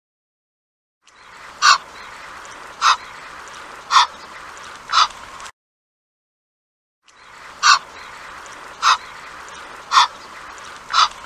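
Egyptian goose calling: short calls about a second apart, in two runs of four with a silent gap between, over a steady background hiss.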